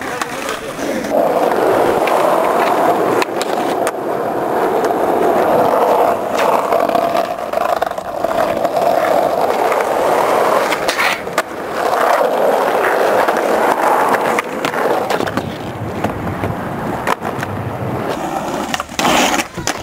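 Skateboard wheels rolling on rough tarmac, a steady grinding roll, broken by several sharp clacks of the board popping and landing tricks.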